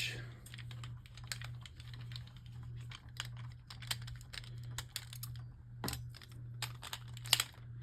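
Light, irregular plastic clicks and clatters from Beyblade spinning tops knocking about in a plastic stadium, after a launch in which the launcher's string got wrapped around.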